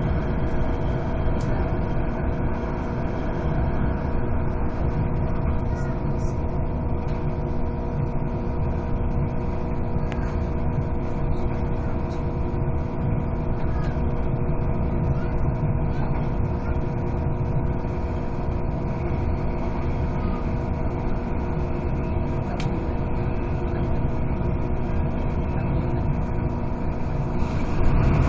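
Steady interior running noise of a Hong Kong Airport Express train in motion: a low rumble with a constant hum of several tones.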